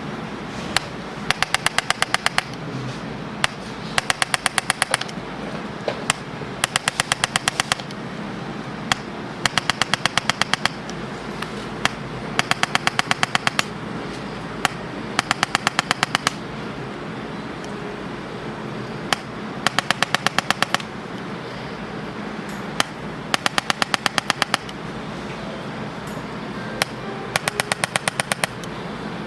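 Electric chiropractic adjusting gun firing in short bursts of rapid clicks, about ten a second for a second or so each, with single clicks between the bursts, as it delivers impulses along the patient's spine.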